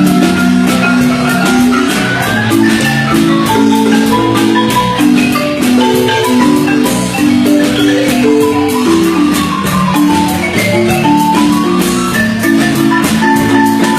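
Guatemalan marimba music: many quick mallet strikes, with several notes held together in chords that change about every half second to a second.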